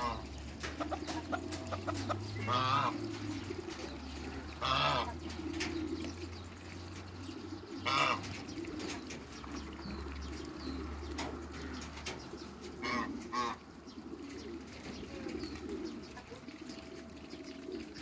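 Backyard birds calling: pigeons cooing steadily and low, with a handful of short, sharper calls from other poultry scattered through, the loudest about halfway.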